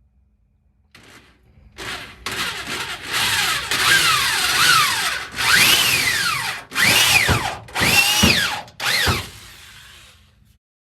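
Handheld power drill run in about six trigger pulls, its motor whine climbing and falling in pitch with each pull, then stopping shortly before the end.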